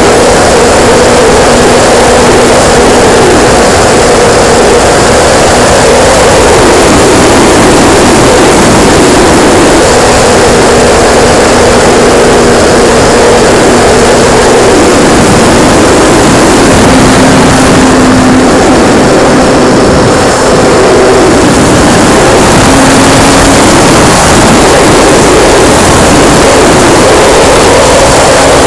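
Radio-controlled P-51D Mustang model's motor and propeller, heard from a camera mounted on the plane: a loud, steady drone under a dense rush, its tone shifting up and down a few times with the throttle.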